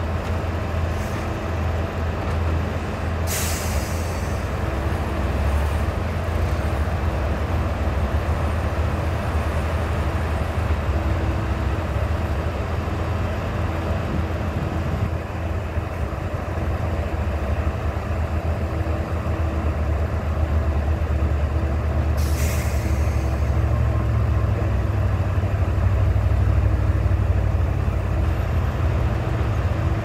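Heavy diesel engine of a loaded log truck running steadily under load as it climbs, a little louder in the last few seconds. Two short air-brake hisses cut through, one about three seconds in and one a little past twenty seconds.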